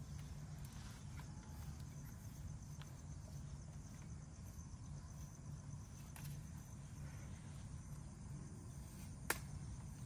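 Insects chirping in a fast, even high-pitched trill over a low steady rumble, with a single sharp click about nine seconds in.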